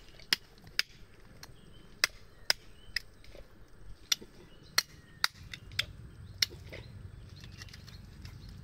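A ribbed metal rod knocking and prying oysters off mangrove roots: a dozen or so sharp clicks of metal striking shell, at an uneven pace of about two a second.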